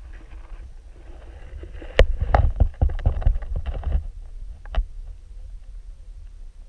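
Underwater camera housing knocking and scraping against the bottom as the camera is moved and set down in sea lettuce: a cluster of sharp knocks and clatter about two seconds in, a single knock near the end, over a steady low underwater rumble.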